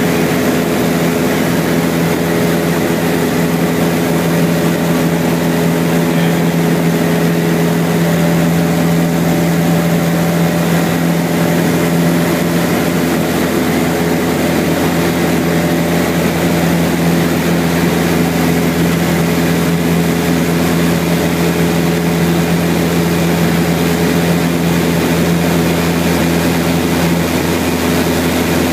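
American Champion 8KCAB Super Decathlon's four-cylinder Lycoming engine and propeller droning steadily in flight, heard from inside the cockpit.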